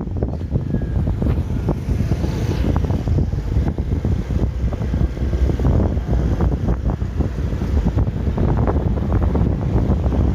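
Wind buffeting the microphone: a dense low rumble with rapid, irregular pops, over the noise of vehicles on the road.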